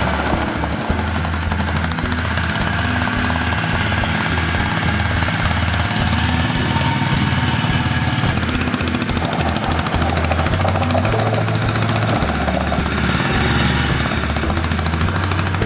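Background music with a stepping bass line, over the steady running of a small engine.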